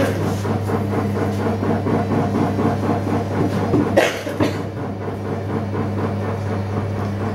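Potter's wheel spinning under a lump of clay being thrown into a pot, giving a steady low hum with an even rhythmic rumble. A sharp knock about four seconds in.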